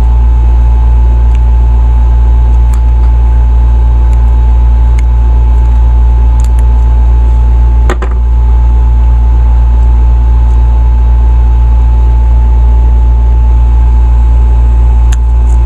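Loud, steady low hum with a faint steady high tone over it. A few faint clicks of a screwdriver and small metal carburetor parts being handled, the sharpest about eight seconds in.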